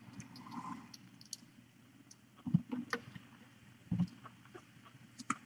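Mother cat and nursing kittens purring faintly and steadily while suckling, with a few soft bumps and rustles from the kittens shifting on the blanket about halfway through and again near the four-second mark.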